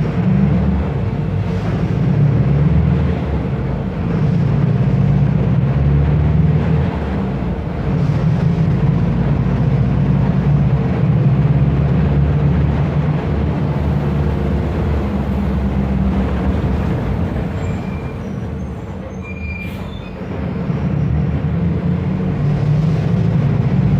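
Diesel engine of a Mercedes-Benz OF 1519 bus chassis running under load with a deep steady rumble. It eases off for a moment about three-quarters of the way through, then pulls again.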